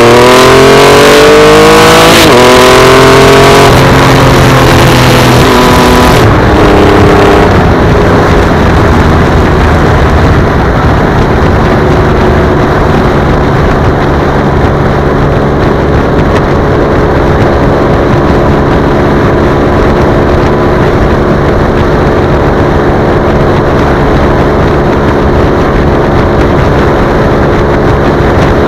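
Triumph Rocket 3 motorcycle's inline-three engine accelerating with rising pitch for the first few seconds, then holding a steady drone at cruising speed, with little wind noise.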